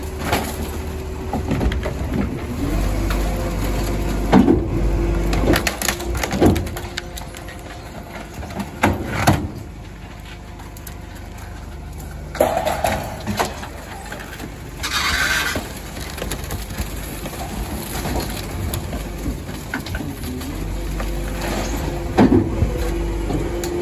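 Rear-loader garbage truck running while furniture and plastic junk are thrown into its hopper: a series of thuds and clatters. The hydraulic packer runs with a steady hum at the start and again near the end.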